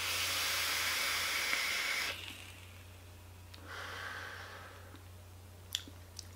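A long draw on a sub-ohm vape, a 0.3-ohm coil fired at 70 watts, makes a loud steady hiss of air and vapour for about two seconds. A softer breathy hiss follows near the middle as the vapour is exhaled, and there is a faint click near the end.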